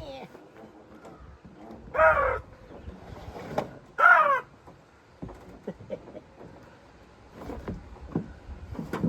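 A crow cawing twice, about two seconds apart, with a sharp click between the caws and a few faint knocks afterwards.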